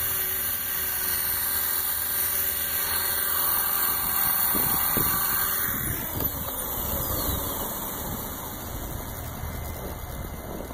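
Electric 450-size E-Razor RC helicopter's motor and rotor whining as it hovers and sets down about six seconds in. The motor then cuts, and the whine falls in pitch as the rotor spins down, over a low rumble of wind on the microphone.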